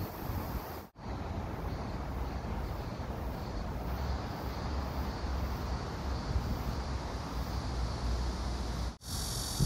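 Steady outdoor street background noise with a low rumble of distant traffic. The sound drops out briefly about a second in and again near the end.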